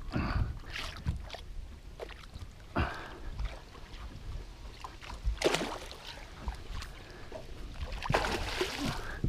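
Scattered splashes and knocks around a small fishing boat as a hooked muskie is played at the boatside, the loudest splash about five and a half seconds in and more churning water near the end.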